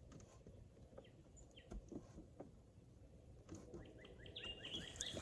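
Near silence with a few faint clicks, then from about three and a half seconds in a bird chirping in a rapid repeated series that grows a little louder toward the end.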